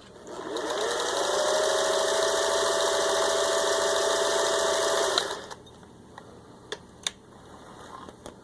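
Vintage 1957 Singer 401A sewing machine motor spinning up with a rising whine, then stitching at a steady speed for about four seconds before stopping with a click. A few light clicks follow near the end.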